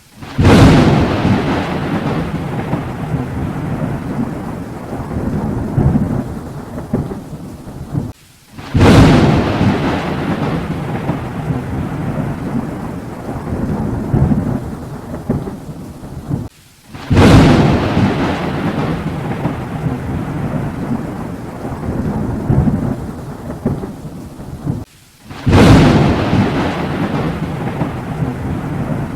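Thunder sound effect: four sharp thunder cracks about eight seconds apart, each followed by a long rolling rumble, the same strike repeating as a loop.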